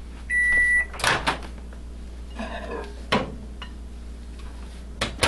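Microwave oven's end-of-cycle beep, one high steady tone about half a second long, signalling that the heating cycle is done. It is followed by sharp clicks and knocks as the door is opened and the bowl is handled.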